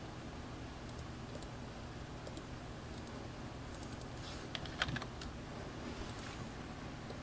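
Computer keyboard typing and light clicks: a few scattered taps, then a short flurry of keystrokes about five seconds in, as a dimension value is typed in. A low steady hum lies under it.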